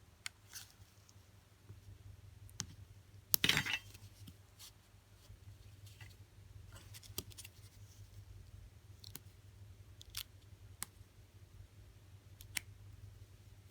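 A razor blade picking at the thin backing film on an iPhone battery's adhesive strips: faint scattered clicks and ticks, with one louder short scrape about three and a half seconds in.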